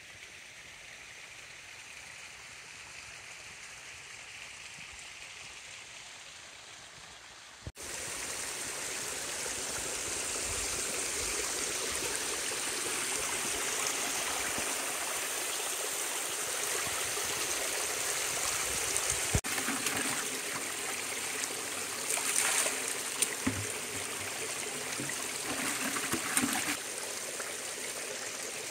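Small mountain spring stream running steadily, quieter for the first eight seconds or so, then louder. A few brief louder sounds rise over the water in the second half.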